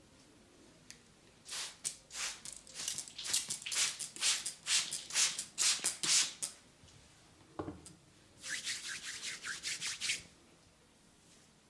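Hands rubbing briskly during a massage, in quick repeated strokes: one long bout, a short pause, then a second, faster bout.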